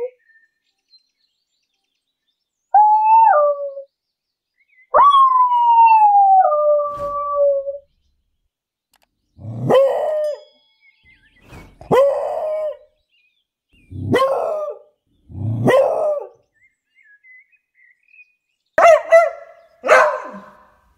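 English beagle baying and barking: a short bay, then a long howl that slides down in pitch, followed by six sharp barks, the last two in quick succession.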